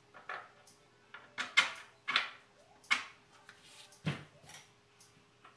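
Long metal bolts being pushed through the holes of an HDPE plastic soap mold, giving about six separate clicks and knocks of metal on plastic, the loudest a little over a second in.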